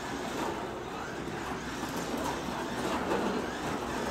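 1/24 scale Carrera digital Ferrari slot car running a lap around a plastic track, its small electric motor whirring steadily.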